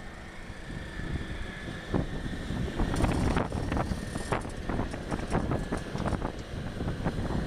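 Excavator's diesel engine running with a steady low rumble, with wind on the microphone. From about two seconds in comes a run of sharp clattering knocks as soil drops into the dump truck's bed.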